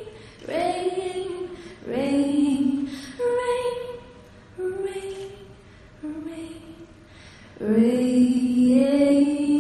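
A solo female voice singing slowly into a microphone, with no instruments audible. She holds short notes with pauses between them, then from about eight seconds in sustains one long low note that slides up a little.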